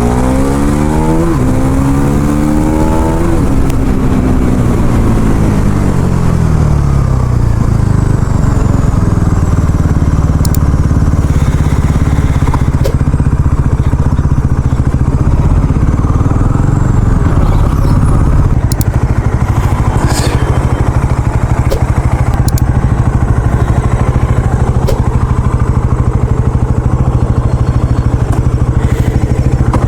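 Bajaj Pulsar NS400Z's single-cylinder engine through its stock exhaust, accelerating with a quick upshift about a second in. The revs rise again, fall away after about three seconds, and the engine then runs at a steady, low cruising note.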